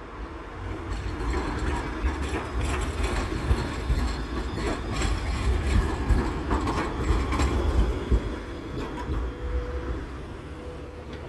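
Pesa Swing low-floor tram passing close, its running gear rumbling and its wheels clacking repeatedly over the junction's rail crossings. The sound builds over the first seconds and eases off toward the end as the tram moves away.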